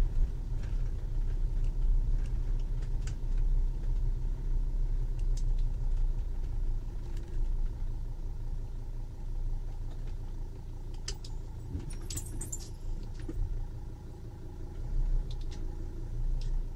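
A camper van's engine and tyres rolling slowly over a dirt lot, heard from inside the cab: a steady low rumble, with a few light clicks and rattles in the second half.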